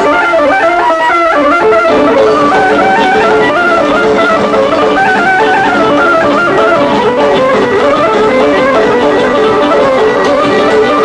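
Bulgarian wedding band playing loud, fast traditional dance music, with a quick running melody over a steady accompaniment.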